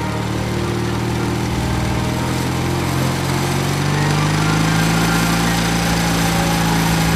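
Small motor of a toy tracked dumper running steadily as it crawls over a sand pile, a low hum that rises slightly in pitch about three to four seconds in.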